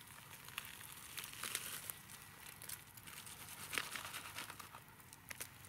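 Faint, irregular crackling and crinkling as hands tear at a charred, coal-roasted armadillo carcass, pulling meat off a leg, with one sharper crack about two-thirds of the way in.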